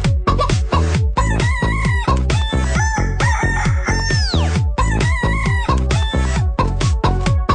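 Chicken clucks and crows set over electronic dance music with a steady, fast beat. About four seconds in, a long falling sweep runs through the track.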